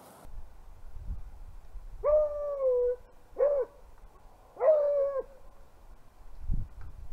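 Beagle baying on a rabbit's scent: two drawn-out bays with a short one between them, over a low rumble.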